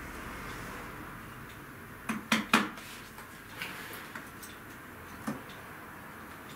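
Upholsterer's tack hammer driving tacks through jute canvas into a wooden sofa frame: three quick sharp strikes about two seconds in, then a few lighter single taps.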